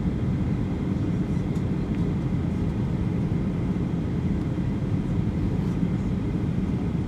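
Steady low rumble inside the cabin of a Boeing 737-800 on approach to landing: its CFM56-7B engines and the rush of air over the fuselage, unchanging throughout.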